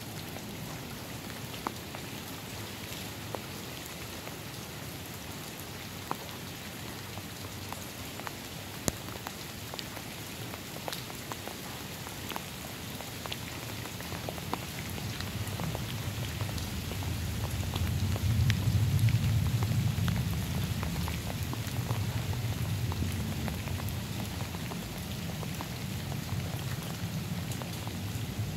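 Steady light rain with scattered drips. About halfway through, a low hum from a LiftMaster LA500 24 V DC linear actuator comes in, loudest a few seconds later, as it swings the iron gate closed.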